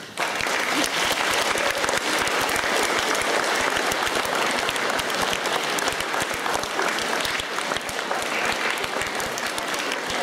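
Audience of schoolchildren applauding: many hands clapping at once, starting suddenly just after the story ends and continuing steadily.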